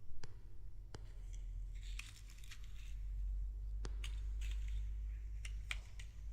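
Hands handling a doll and its packaging: a few sharp plastic clicks and short rustling, tearing scrapes, over a faint low hum.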